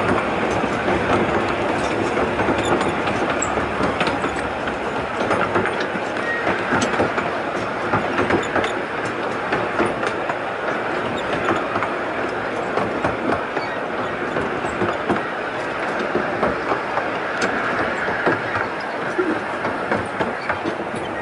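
Fairbourne Railway's 12¼-inch-gauge miniature train running along the line, heard from inside a coach: a steady rumble and rattle, with the wheels clicking over the rail joints.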